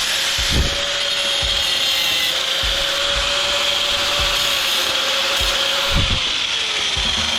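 Handheld power tool grinding steadily into the motor's winding wire, its motor whining at a steady pitch over a harsh grinding hiss, cutting in to check that the wire is copper.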